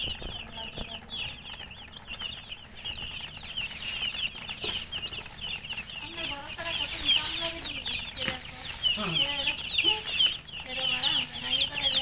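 A flock of young chicks peeping nonstop, a dense chorus of short, high-pitched chirps overlapping one another, growing louder about halfway through.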